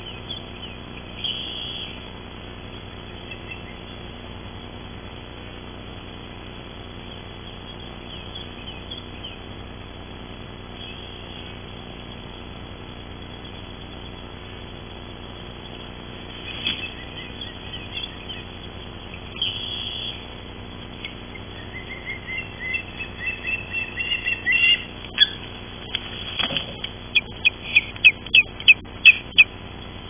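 Ospreys calling: a few scattered high chirps, then a quickening run of repeated piping calls that grows loud over the last few seconds as two ospreys come onto the nest. A couple of sharp knocks sound a few seconds before the end.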